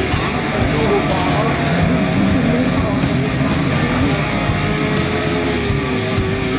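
Rock music with guitar, loud and steady.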